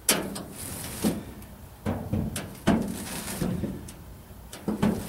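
Steel pickup truck bed being shoved and dragged by hand over grass: a run of sudden sheet-metal bangs and rattles, each trailing off.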